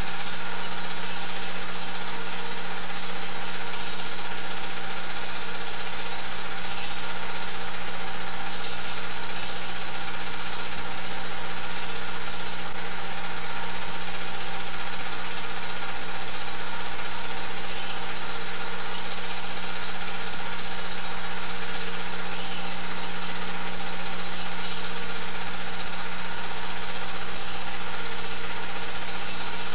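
Film projector running steadily: a constant motor hum and whir from the mechanism, with no change in pitch or speed.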